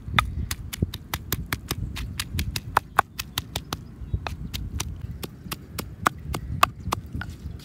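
Raw crab shells crunching as they are chewed: rapid, irregular crisp cracks, several a second, over a low rumble.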